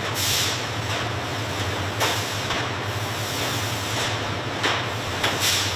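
Steady factory machinery noise with a low hum. Short bursts of hissing come about a third of a second in, at about two seconds, and near the end.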